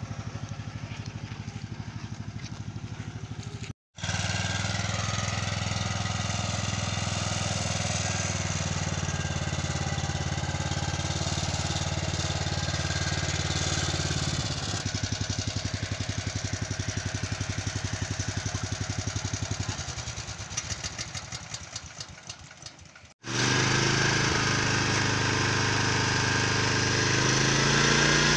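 Swaraj Code mini tractor's engine running steadily while it works a rear-mounted rotary weeder. About twenty seconds in, the engine slows to separate firing pulses and fades out. After a short break it is running again, louder, with the revs rising near the end.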